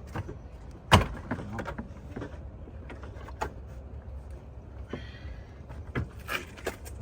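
Scattered clicks and knocks of parts and tools being handled at a car door, with one sharp knock about a second in and a short scrape about five seconds in.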